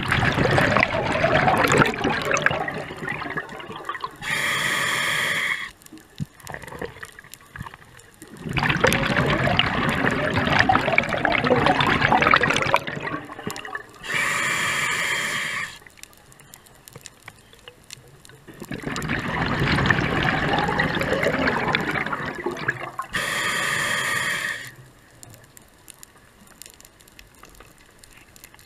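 Scuba diver breathing through a regulator underwater, three breaths: each a long crackling rush of exhaled bubbles followed by the short, whistly hiss of the regulator on the inhale, then a pause.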